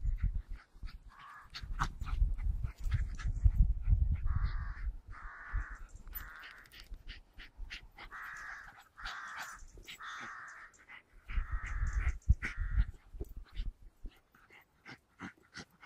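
Harsh animal calls repeated in runs of two or three, each under a second long, over bursts of low rumble in the first few seconds.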